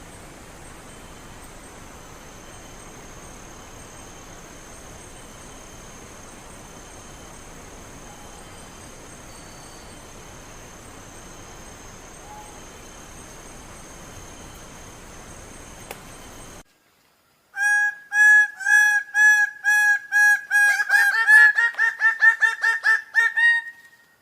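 Steady hiss with a faint high whine that cuts off abruptly, then a bird of paradise calling: a run of loud, clear repeated notes, about two a second at first. The notes then come faster and climb slightly in pitch before stopping.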